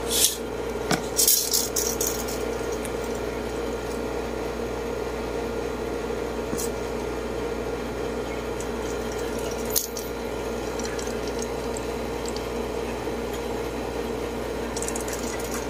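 Steady mechanical hum with a few sharp clicks and rattles from handling a steel tape measure, the loudest cluster in the first two seconds and a single click near ten seconds in.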